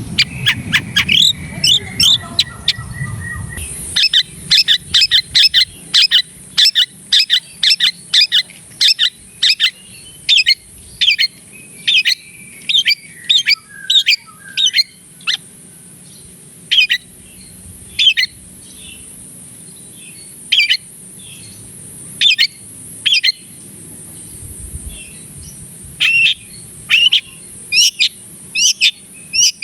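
Long-tailed shrike (cendet) giving its 'toet toet' call: a rapid run of short, sharp, high notes, about two a second, that thins out to single notes every second or so and picks up again near the end. A steady high hiss runs underneath.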